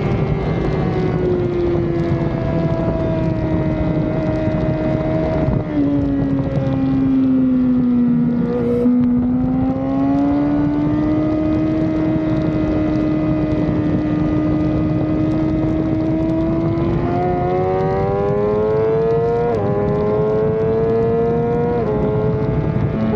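Sport motorcycle engine on a racetrack, slowing into a corner with the engine note falling, then accelerating out with the pitch climbing steadily and two sudden drops near the end as it shifts up a gear. Wind rushes over the mounted camera.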